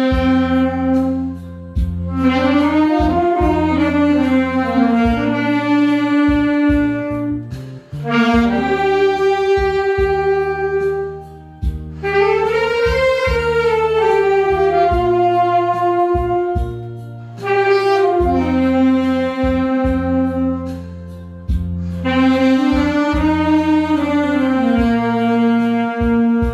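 Saxophone playing a slow, lyrical melody in phrases of several seconds with short breaths between them, over steady sustained low accompaniment.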